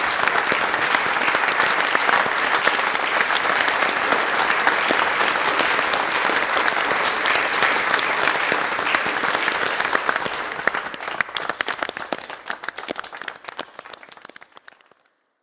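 Audience applause, a dense steady crowd clapping that thins out about ten seconds in into scattered individual claps and dies away near the end.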